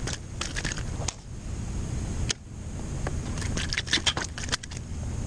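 A hooked bass is reeled up to an inflatable kayak and lifted out by hand. Clusters of short rattling clicks and splashy crackles come from the line, lure and thrashing fish, densest in the last couple of seconds, over a low steady rumble of wind on the microphone.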